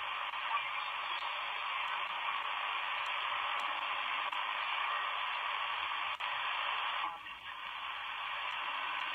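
Shortwave receiver audio from a tablet: steady hiss of band noise on the 80-metre amateur band, limited to a narrow speech-width band, with a brief drop in the noise about seven seconds in as the tuning is swiped across the waterfall.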